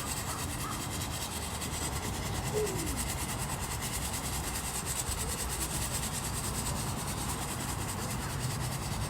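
Large wood bonfire burning with a steady rushing roar, with a faint falling squeak about two and a half seconds in.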